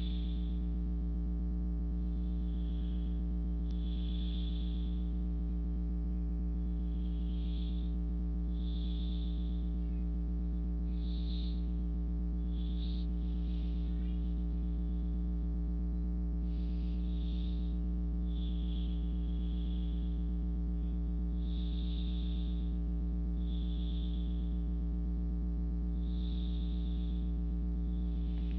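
A person breathing softly and slowly, in and out about every two seconds, over a steady low electrical hum.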